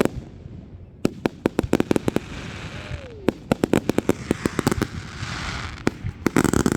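Fireworks going off in a rapid string of sharp cracks and pops, growing dense from about a second in, with a hissing crackle between the bangs.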